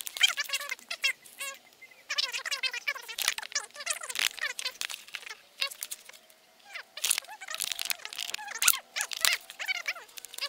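A boy's voice talking, sped up so it comes out high-pitched and too fast to make out, a chipmunk-like chatter with a couple of short pauses.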